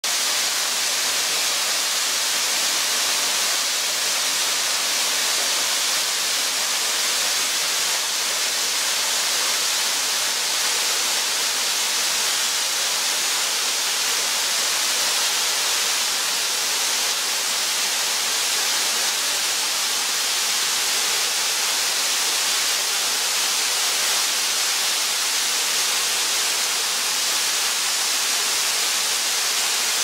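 A narrow mountain waterfall splashing down a rock face into a pool. The falling water makes a steady, even hiss that is mostly high-pitched, with little low rumble.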